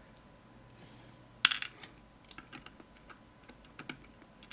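Small metal parts of a disassembled Medeco lock clinking: one sharp metallic clink about a second and a half in, with a brief ring, then a few light ticks of handling.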